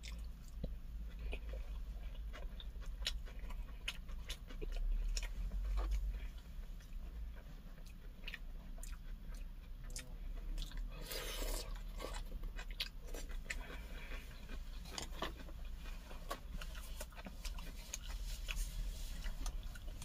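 Close-miked chewing and biting of a mouthful of pork wrapped in a cabbage leaf, with crisp crunches and wet mouth clicks; a brief louder rush of noise comes about halfway through.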